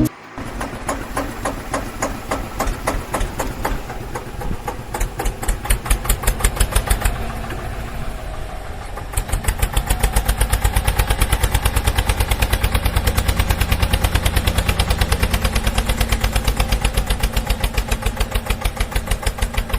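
Tractor engine chugging with an even, rapid beat of about four pulses a second, stepping louder about nine seconds in.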